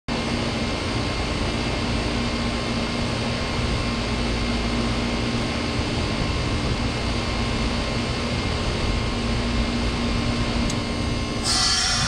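2004 Goodman 3.5-ton heat pump outdoor unit running, a steady compressor hum with fan noise. Near the end a sudden loud hiss of rushing refrigerant sets in, typical of the reversing valve shifting as the unit goes into defrost.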